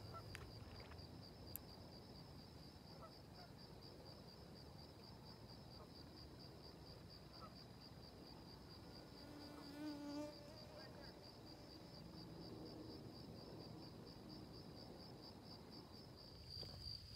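Faint crickets chirping in a steady, evenly pulsing high trill. About ten seconds in comes a brief low call.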